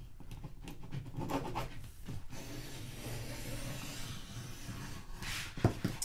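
Snitty vinyl cutter sliding along a sheet of wrap vinyl on a tabletop, cutting it in half: a steady scratchy rasp lasting a couple of seconds, with a sharp knock on the table near the end.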